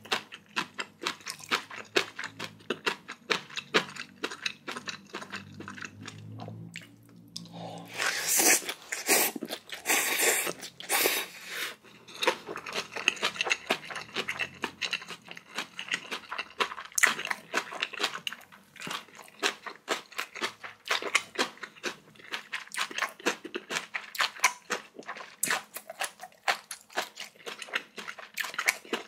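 Close-miked chewing of spicy bibimbap, with dense crunching and wet mouth clicks throughout. A louder, noisier stretch starts about eight seconds in and lasts some four seconds.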